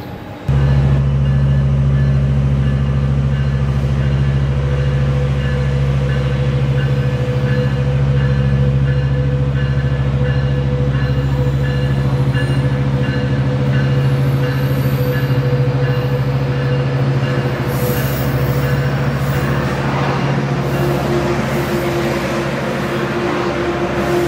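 Metrolink commuter train's diesel locomotive departing, its engine giving a steady low drone that starts suddenly about half a second in.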